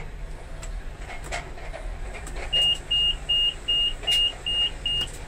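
Scania R 580 truck's dashboard warning buzzer beeping seven short, high, even beeps about two and a half a second as the ignition key is turned on, after a few faint clicks of the key going in.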